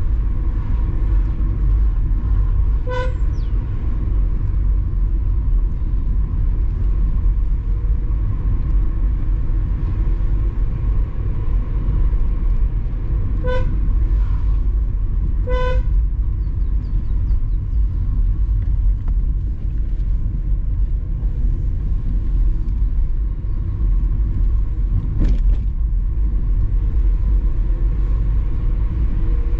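Car driving, with a steady low rumble of engine and road noise. A car horn gives three short toots: one about three seconds in, then two close together near the middle. There is a single brief knock near the end.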